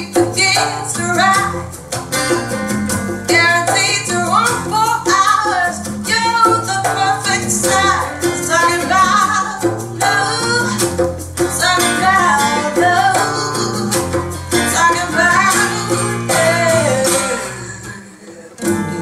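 Recorded music played back through Verity floor-standing loudspeakers: a woman singing over fast plucked guitar with bass and shaker percussion. The music drops away briefly near the end, then picks up again.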